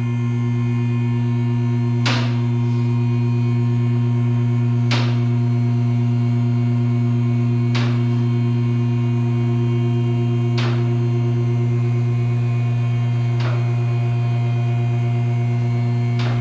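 Background music: a steady low drone with a sharp percussive hit about every three seconds, six hits in all.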